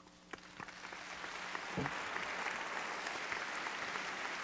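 Audience applause that starts as a few scattered claps and swells within about two seconds into steady, dense clapping.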